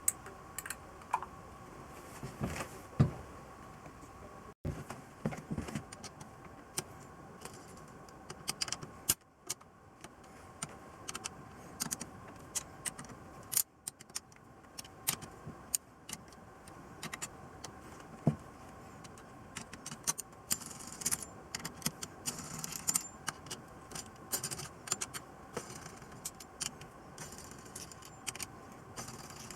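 Small metal hand tools and parts clicking and clinking irregularly, in quick scattered taps that come thicker in the second half, over a faint steady hum.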